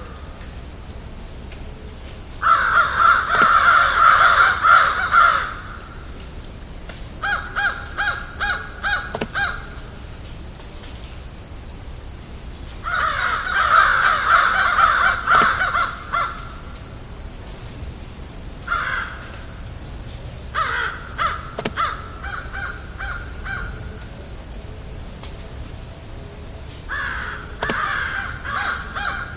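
Crows cawing in repeated bouts. Some bouts are dense runs of harsh caws lasting about three seconds; others are short series of separate caws, with pauses between bouts. A steady high hiss runs underneath.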